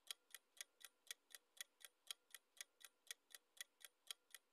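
Faint clock-tick sound effect of a countdown timer, ticking evenly about four times a second.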